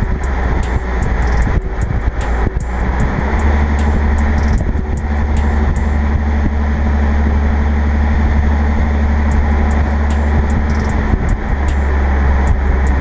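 Infiniti Q50 hybrid's V6 running through a newly fitted aftermarket axle-back exhaust, a steady low exhaust drone heard right at the tailpipe while the car drives along, with wind and road noise on the microphone. It gets slightly louder about three seconds in.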